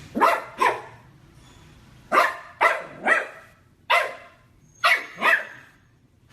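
A dog barking eight times in short clusters: twice at the start, three times about two seconds in, once near four seconds and twice about five seconds in.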